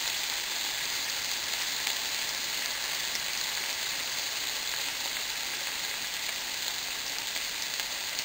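Sliced sirloin steak sizzling steadily in a frying pan.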